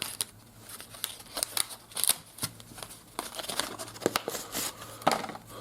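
Hands handling card-sized fridge magnets and their pack wrappers: irregular rustling with many small clicks and taps.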